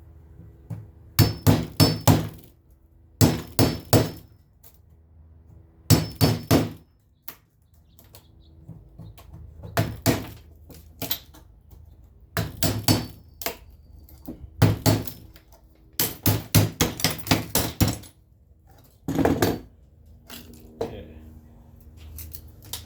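Hammer blows in quick bursts of three to six strikes with short pauses between, some strikes ringing with a bright metallic tone, as trim is knocked loose from the door's glass frame.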